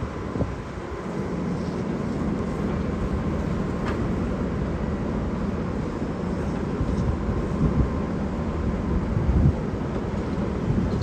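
Steady low drone of a truck-mounted mobile crane's diesel engine running while it holds a suspended counterweight block on its hook.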